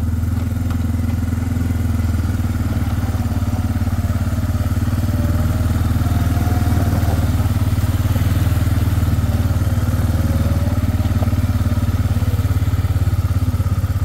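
Four-wheeler (ATV) engine running steadily at an even pace: a low, constant hum.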